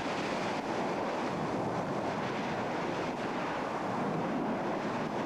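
Lava fountain erupting from a vent: a steady rushing roar of spraying lava and gas.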